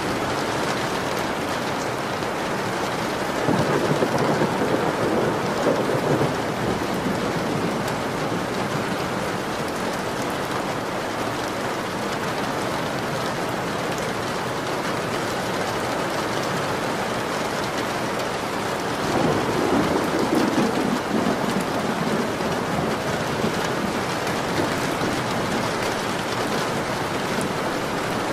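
Steady rain falling, with two swells of thunder rumbling through it, one a few seconds in and one about two-thirds of the way through.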